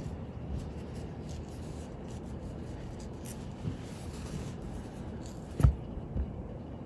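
Small watchmaker's tools handling a wristwatch while its hands are being refitted: faint scratching and rubbing, then a sharp tap near the end and a smaller one just after.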